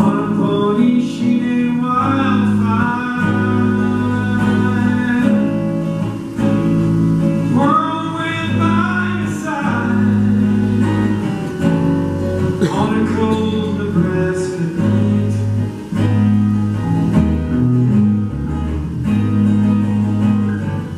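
Live acoustic band music: acoustic guitar strummed and picked with a small string section of violin and cello, a melody line rising and falling above the guitar.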